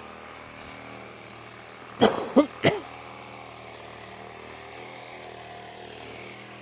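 A vehicle engine idling steadily. About two seconds in come three short vocal sounds in quick succession.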